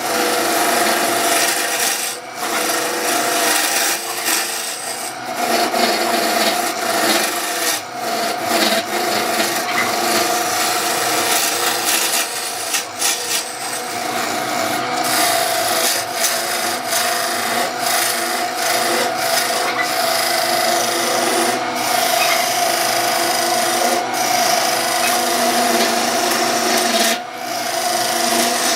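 Wood lathe running with a steady motor hum while a tool works the spinning wood, giving a continuous rasping scrape that breaks off briefly every few seconds as the tool lifts away.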